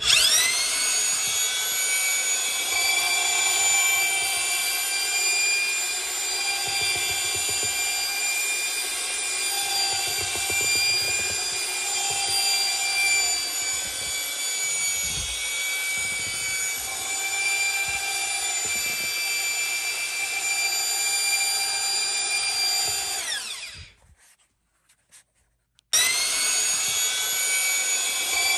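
Drill spinning a paddle mixer through drywall mud in a bucket, with a steady motor whine. It spins up at once, runs about 23 seconds, winds down to a stop, and starts up again about two seconds later.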